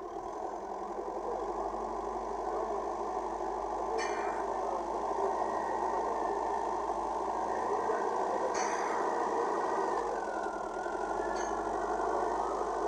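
Backhoe's diesel engine running steadily and getting a little louder over the first few seconds, with three short sharp clinks and a wavering higher whine in the last few seconds.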